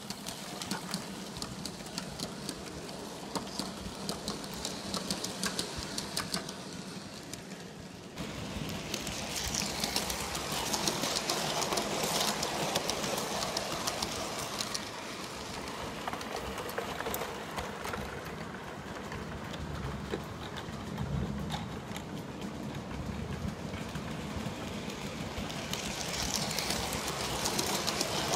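G scale model train running on its track: a steady run of small wheel clicks over the rail joints with the drive motor's hum. It gets louder about eight seconds in as the train comes closer.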